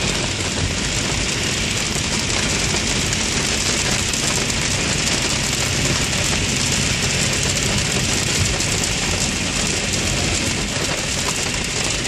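Steady rushing noise inside a moving car on a rain-soaked road: tyres on the wet road and rain on the car, over a low rumble.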